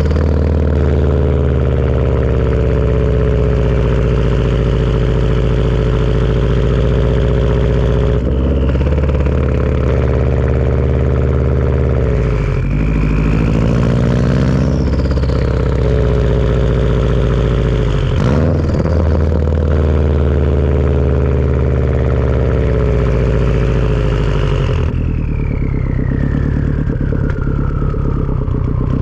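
Turbocharged Subaru flat-four engine pulling through a Tomei turbo-back exhaust, with a steady low exhaust note. A high turbo whistle rises as the turbo spools and falls away when the throttle is lifted, and the engine note is broken by four short breaks. The whistle sweeps steadily down over the last few seconds.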